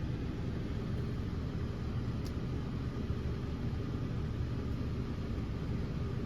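Steady low rumbling background noise with no distinct events, apart from one faint brief tick about two seconds in.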